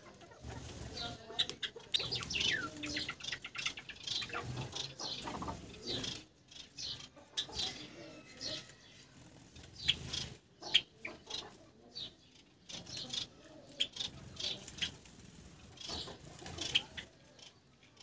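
Small aviary finches, Gouldian finches among them, giving many short, sharp chirps that slide down in pitch, often in quick clusters, with occasional wing flutters as birds fly about the cage.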